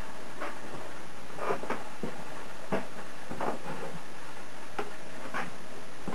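Model train running on a layout's track, its wheels clicking irregularly over rail joints against a steady hiss.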